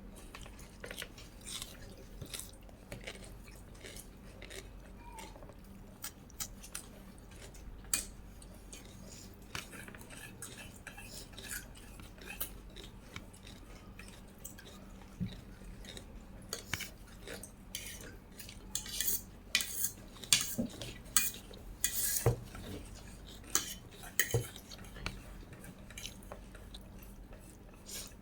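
Eating utensils clicking and scraping against a dish, in scattered light strikes that come thicker and louder in the second half.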